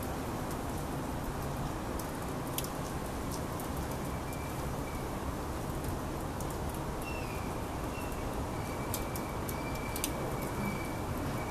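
Steady outdoor background noise with scattered faint crackling clicks, and a thin high steady tone coming in about seven seconds in.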